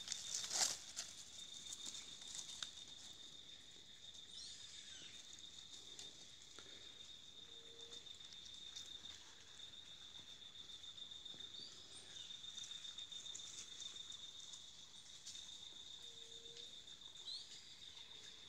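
An insect trills steadily at one high pitch, with a fast, even pulse. A few short rising chirps sound above it now and then, a short low note comes three times, and a few rustling clicks of steps in leaf litter come at the start.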